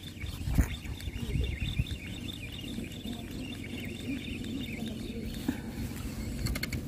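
Spinning reel being cranked to bring in a small hooked fish, with a light, high chattering whir that stops about five seconds in. Wind rumbles on the microphone.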